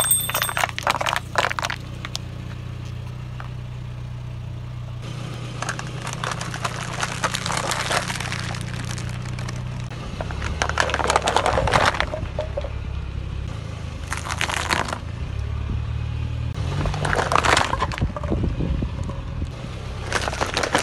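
Car tyre rolling over and crushing plastic bowls, paper cups and cardboard boxes: about six separate bursts of crackling and crunching as each object gives way, with the car's engine humming low underneath.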